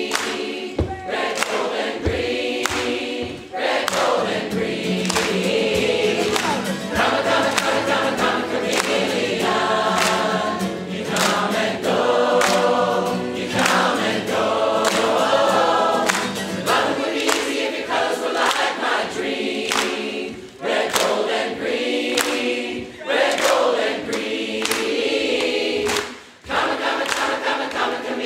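A large amateur crowd choir singing together, with hand clapping along; the singing breaks off briefly a few times between phrases.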